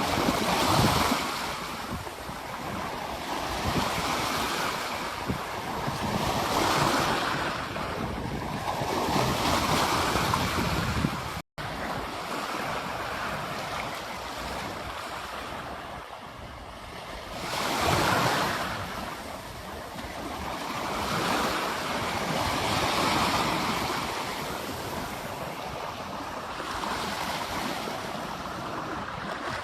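Ocean surf breaking on a beach, each wave swelling and washing back every few seconds. The sound cuts out for a split second about a third of the way through.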